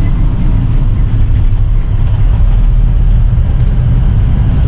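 Steady low rumble of a road vehicle in motion, engine and road noise.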